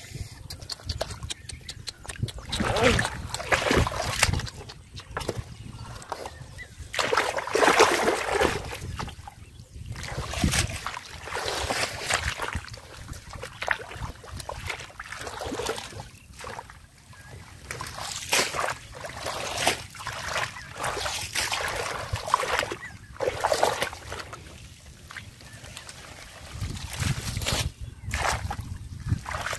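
Hands splashing and sloshing through shallow muddy water, in irregular bursts, as someone gropes in the mud by hand for fish.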